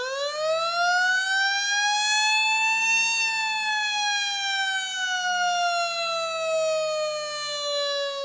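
A warning siren wailing: its pitch climbs for about three seconds, then slowly falls.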